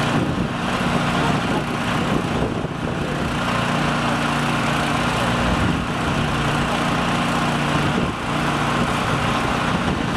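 An engine running steadily with a low, even hum, dipping briefly in level about a quarter of the way in and again near the end.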